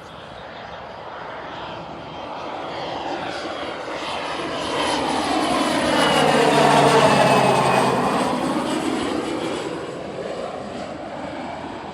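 Fixed-wing aircraft flying past, its engine noise swelling to a peak about seven seconds in and then fading, with a high engine whine that falls in pitch as it passes.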